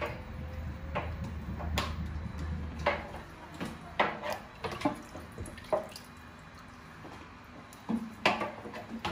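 Kitchen-sink clatter: separate knocks of plastic containers and utensils about once a second, with water dripping and splashing.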